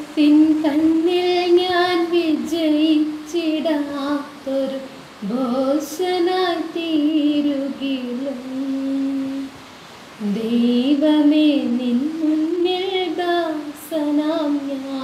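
A woman singing solo: a slow melody of long held, gliding notes, with a brief pause for breath about ten seconds in.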